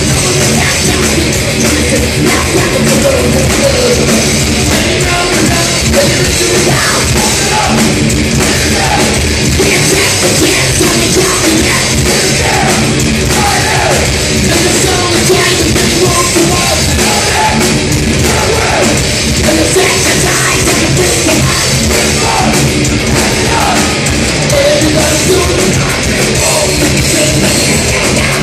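Thrash metal band playing live and loud: distorted electric guitars and drum kit, with shouted lead vocals over them.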